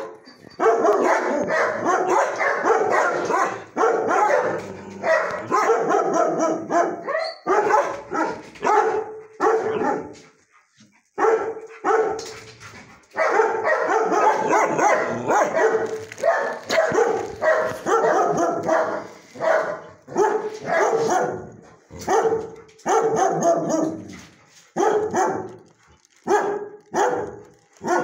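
Dogs barking almost nonstop in shelter kennel runs, bark after bark overlapping, with a brief lull about ten seconds in.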